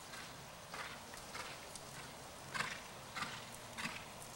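Horse hoofbeats on the soft dirt footing of a riding arena: a regular run of footfalls, a little under two a second.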